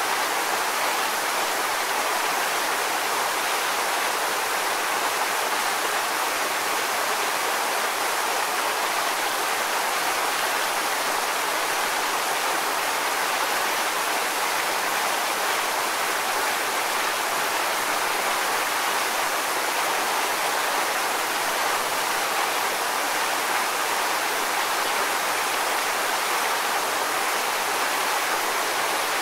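Waterfall: water pouring and splashing in a steady, even rush with little low rumble.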